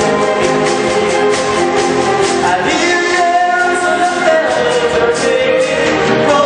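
A group of singers performing a pop song with instrumental backing. The voices hold sustained notes over a steady beat.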